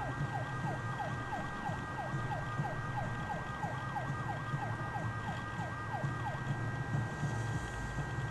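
Emergency vehicle siren on a fast yelp, each cycle falling in pitch, about three a second, over a low engine rumble and a steady high tone; the siren fades near the end.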